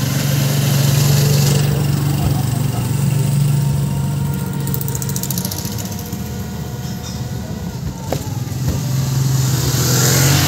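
Motorcycle engine of a passenger tricycle running while it drives along the street, swelling louder about a second in and again near the end, with steady wind and road noise.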